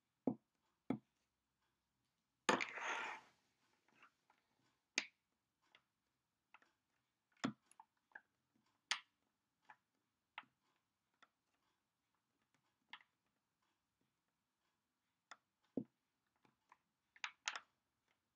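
Hands and fingertips tapping and patting on a wooden tabletop, scattered irregular taps with a longer brushing sound about two and a half seconds in and a quick cluster of taps near the end.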